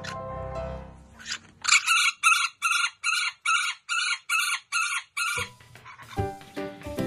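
Golden conures calling in a rapid run of about a dozen loud, high calls, roughly three a second, starting a little under two seconds in and stopping abruptly about five seconds in. Background music plays before and after the calls.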